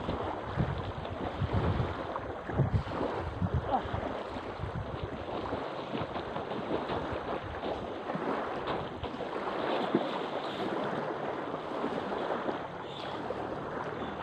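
Small waves lapping against a pebbly lakeshore, with wind buffeting the microphone in low gusts, strongest in the first few seconds.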